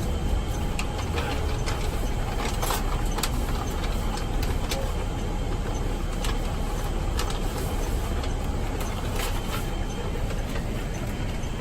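Motor vehicle running: a steady low rumble with scattered light clicks and ticks over it.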